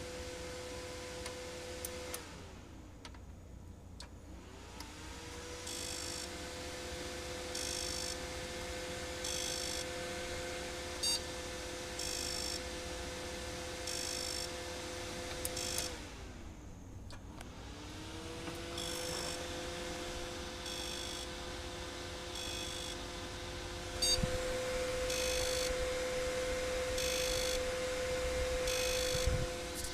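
Western Digital WD800JD hard drive cycling: its spindle motor whine falls away as it spins down, then rises again as it spins back up, twice. While it is up to speed, short buzzing clicks repeat about every second and a half. It is a failing drive, which the owner suspects is dead or has a faulty circuit board.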